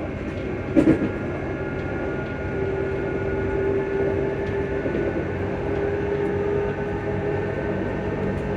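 ScotRail electric multiple unit's traction motors humming while the train runs, steady whine tones over the rumble of the carriage, one tone growing stronger in the middle. A single knock about a second in.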